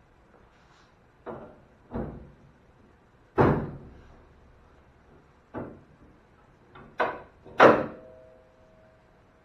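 The steel hood of a 1986 Chevy Suburban being lowered and shut, six thuds and slams, the loudest about three and a half seconds in. The last one leaves a short metallic ring.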